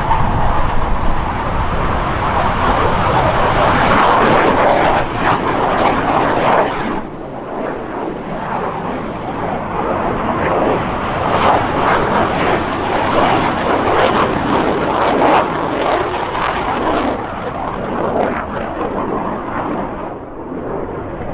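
Jet noise from a Panavia Tornado's twin RB199 turbofans as it flies low. The loud rushing noise dips about seven seconds in, then builds again with a ragged crackle.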